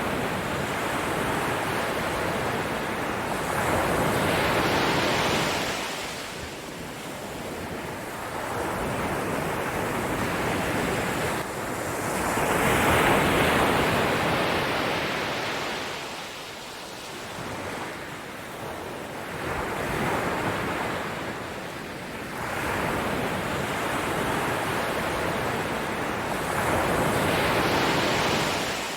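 Ocean waves surging in and washing back, a slow rise and fall of noise with a swell roughly every six to eight seconds.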